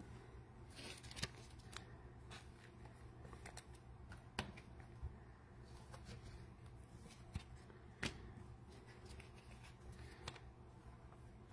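Faint handling of trading cards: soft rustles and a scattering of light clicks as cards are slid and flipped, the sharpest clicks about four and eight seconds in.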